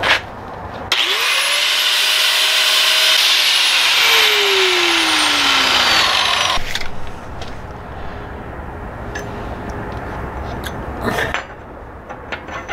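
Angle grinder spun up and grinding on the steel propeller shaft for about five seconds. Its motor pitch sags in the second half, then it cuts off suddenly. Afterwards there is quieter handling of the shaft and a knock near the end.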